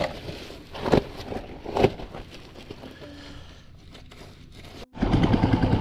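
A few sharp knocks or thumps in the first two seconds, then after a sudden break near the end a loud motor running with a steady low tone.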